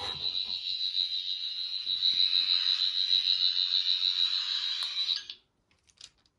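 Toy sonic screwdriver sounding a steady, high, rapidly warbling electronic tone that cuts off about five seconds in.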